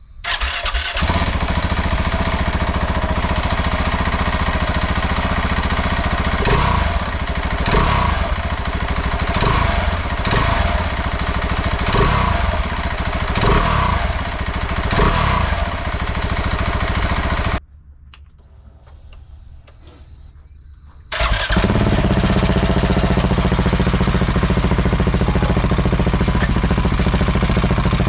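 Husqvarna 701 single-cylinder engine breathing through a Dominator aftermarket exhaust: it starts, then is blipped with several short revs in quick succession. After a few seconds of much quieter sound it runs again loudly and steadily at idle.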